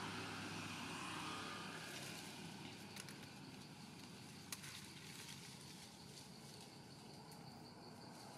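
Faint outdoor background: a low steady hum that eases off a little over the first few seconds, with a few small sharp clicks, the clearest about four and a half seconds in.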